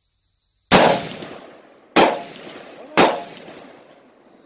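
Three shots from an AR-15-style rifle, about a second apart, the first a little under a second in, each with a ringing echo tail and a smaller sharp tick after it.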